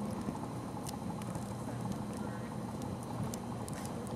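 Campfire crackling: scattered sharp pops and snaps over a steady hiss.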